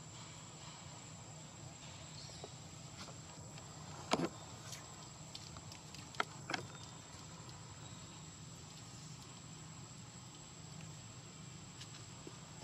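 Steady high-pitched insect drone, like crickets, over a faint background hum, broken by a few short sharp knocks: one about four seconds in and two close together about two seconds later.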